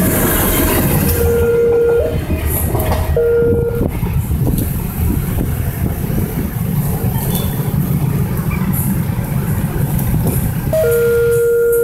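A train rumbling past a level crossing, with the crossing's electronic warning signal sounding in alternating low and high tones. The tones stop after a few seconds, leaving the rumble of motorbike and car traffic driving over the crossing. The warning tones start again near the end.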